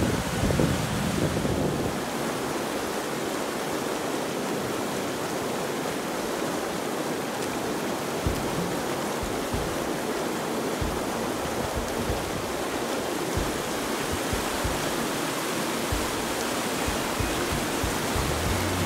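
Fast Himalayan mountain river rushing over rounded boulders: a steady, unbroken rush of whitewater.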